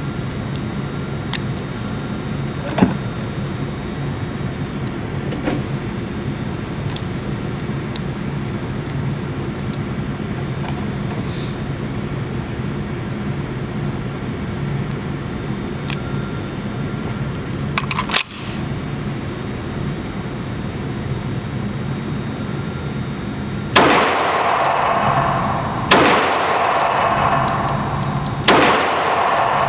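CZ 97B .45 ACP pistol fired three times in the last six seconds, a loud sharp shot about every two and a half seconds, each with a ringing tail. Before the shots there is only a steady background rumble with faint scattered clicks and a single sharper click.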